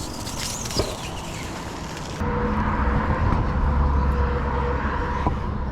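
Road traffic on a city bridge: a motor vehicle's engine running with a low rumble and a steady hum, coming in and growing louder about two seconds in.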